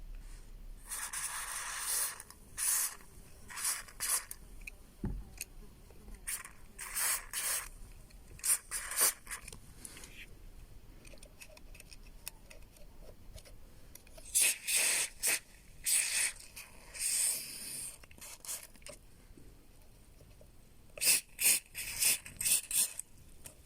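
Aerosol lubricant sprayed into a car door's hinge mechanism in a series of hissing bursts, a longer one near the start and many short ones after, flushing old black grime out of it.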